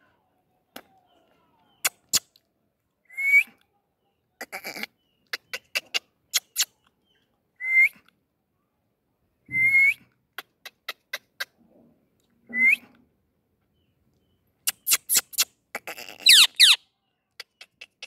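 Indian ringneck parakeet giving short whistles that hook upward at the end, four of them a few seconds apart, then a quick run of falling whistled calls near the end. Sharp clicks sound among the calls throughout.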